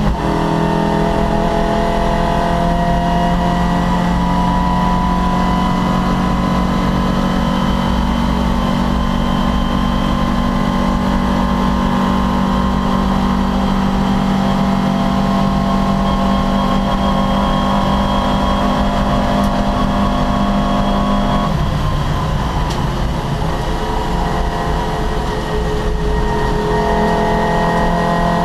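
Opel Kadett C race car's engine held at steady high revs for about twenty seconds. Then the revs drop suddenly and climb again near the end.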